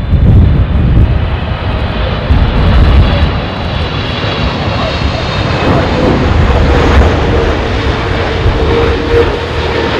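Jet airliner's engines running loud as it passes on its landing approach: a deep rumble with a faint high whine, and a steady humming tone that comes in about halfway through.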